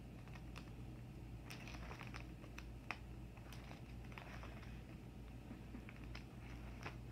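Plastic card-sleeve pages of a ring binder being turned: faint crinkling and light scattered clicks, with one sharper click about three seconds in.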